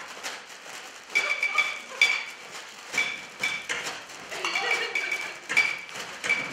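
Table percussion played on dishes and utensils: a loose rhythm of sharp clinking hits, many ringing briefly with the same high tone.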